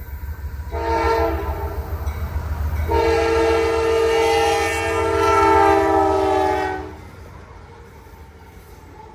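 Diesel freight locomotive's air horn sounding a chord: a shorter blast, then a longer, louder one that cuts off about seven seconds in, over the low rumble of the passing train.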